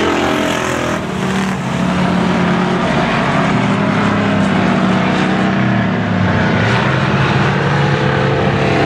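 Engines of several hobby stock race cars running hard around the track, a loud steady drone of overlapping engine notes whose pitches shift as the cars circle.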